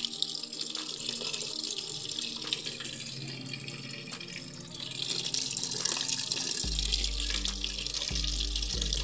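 A thin stream of water pouring from a drum's plastic tap onto a spinning plastic propeller and splashing into a plastic basin, a steady hiss of falling and splashing water.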